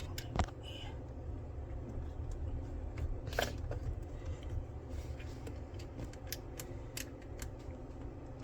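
Scattered small clicks and taps of a DDR5 RAM stick being handled and pushed into a motherboard memory slot, with a sharper click about half a second in and a louder one about three and a half seconds in; the stick is not seating all the way. A low steady hum runs underneath.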